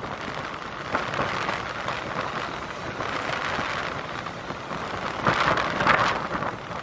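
Wind rushing past a microphone held out of a moving railway carriage's window, over the running noise of the train on the track. It swells briefly about a second in and more strongly near the end.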